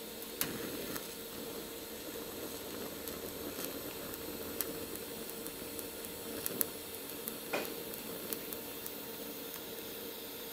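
TIG welding arc on thin sheet steel, from an XTM 201Di welder set to about 35 amps: a steady hiss with a constant hum under it and a few faint clicks.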